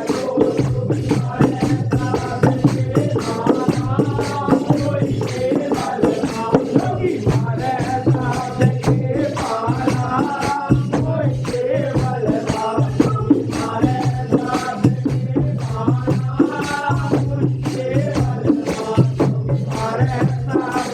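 Hindi devotional bhajan music with a quick, even percussion beat and a repeating bass line under a melody.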